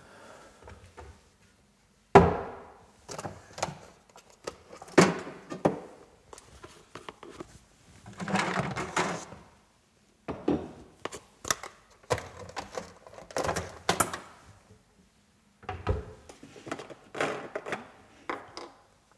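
Knocks and clatter of kitchenware being picked up and set down on a wooden worktop: a metal electric kettle and a coffee jug. The sharpest knock comes about two seconds in, and there is a longer rustling clatter around the middle.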